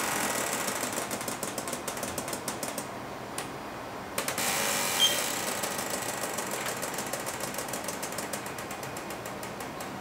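Pneumatic robot arm's control valves clicking rapidly and unevenly while air hisses, as the arm moves carrying a 5 kg load; the hiss surges about four seconds in.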